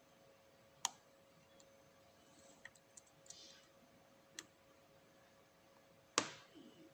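Scattered faint clicks of a lock pick and tension tool working the pins inside an Abus 7240 padlock: about half a dozen ticks at uneven intervals, the sharpest near the end.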